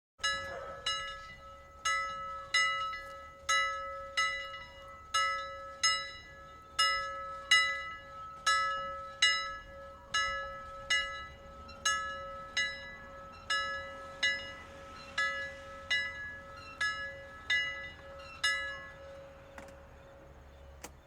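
Bell-like alarm sound effect: metallic strikes repeating about one to two times a second, each ringing and fading, over a steady hum-like tone. It stops abruptly at the end.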